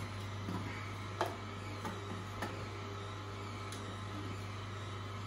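Angel twin-gear slow juicer running with a steady low hum, with a few short clicks and cracks as produce is pressed down the feed chute with a wooden plunger and crushed between the gears.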